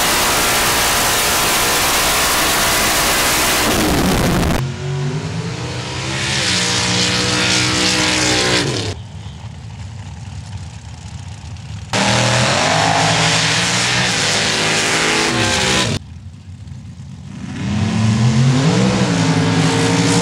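High-powered off-road racing engines at full throttle. A loud roar for the first four seconds or so, then a string of abruptly cut shots of engines revving up and down, some close and loud, some quieter.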